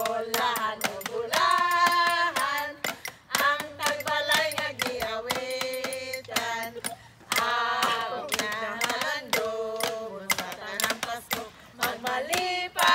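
Women singing a song together, with notes held and sliding between pitches, over a quick clapped beat.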